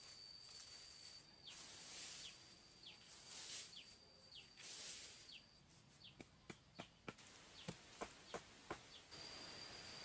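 Faint rustling swishes, then a run of about ten sharp clicks or snaps in the second half, over a steady high whine.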